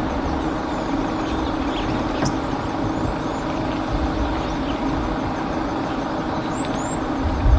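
Car engine idling steadily with a low even hum, with a few short faint high chirps over it.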